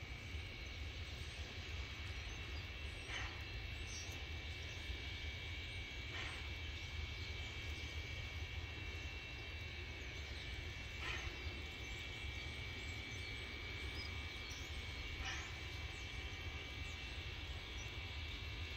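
Distant narrow-gauge steam locomotive standing and making steam: a steady high hiss over a low rumble, with a few short bursts spaced several seconds apart.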